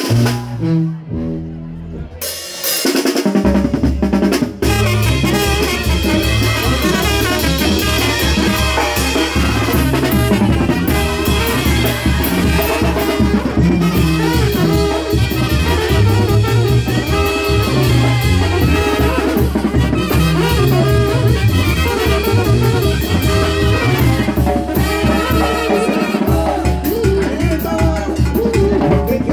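Live Mexican banda music: brass with a drum kit playing loud. A few held low notes open it, then a steady dance beat with a heavy bass comes in about three seconds in.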